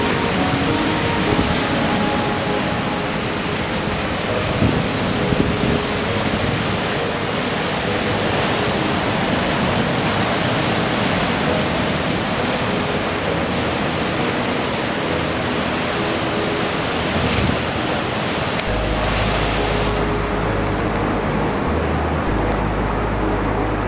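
Sea surf breaking and washing over rocks, a steady dense wash of water noise. A deep low rumble joins it about three-quarters of the way through.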